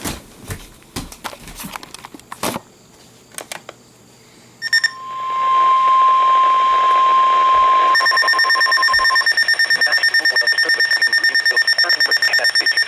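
Scattered clicks and knocks, then, about four and a half seconds in, a steady single-pitched alert tone near 1 kHz. At about eight seconds it is joined and replaced by a loud, rapid electronic alarm beep: an emergency weather alert's attention signal going off.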